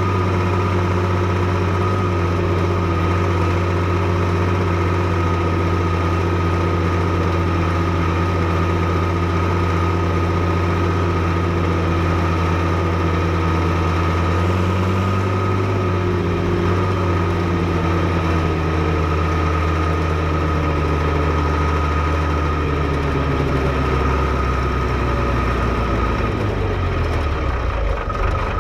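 Fiatagri 115/90 tractor's 5.9-litre six-cylinder diesel engine running at a steady speed, then slowing, its note falling over the last several seconds.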